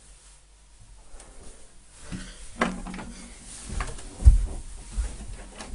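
Several scattered knocks and thumps, the loudest a deep thud about four seconds in.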